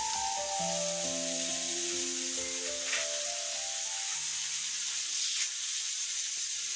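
Strips of game meat sizzling on a stone grill plate, a steady hiss.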